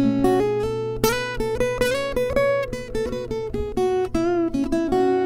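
Steel-string acoustic guitar with a capo played fingerstyle: a run of plucked single melody notes ringing over lower bass notes, with a firmly picked note about a second in.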